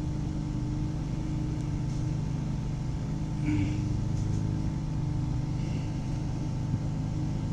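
Steady low motor hum, like an engine idling, with a brief faint handling sound about three and a half seconds in.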